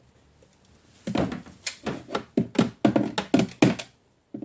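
A quick run of about nine short thuds or taps, roughly three a second, starting about a second in.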